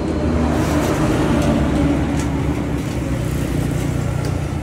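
Steady low mechanical rumble of a running motor or engine, swelling slightly partway through and easing near the end.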